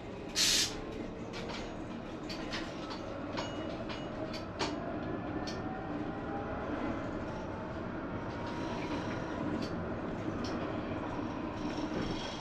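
Tram running on its rails and gathering speed: the traction motors' whine rises slowly in pitch over a steady rolling rumble, with scattered sharp clicks from the wheels on the track. A short loud hiss sounds about half a second in.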